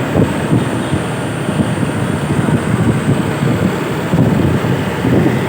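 A large vehicle's steady rumble, with wind on the microphone and a faint high whine through the middle.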